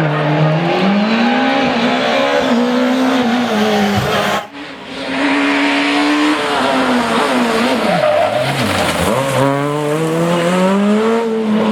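Super 2000 rally car's naturally aspirated four-cylinder engine at full throttle on a stage, its pitch climbing and dropping with gear changes. There is a sudden break about four seconds in, and the revs fall away around eight seconds before climbing steadily again.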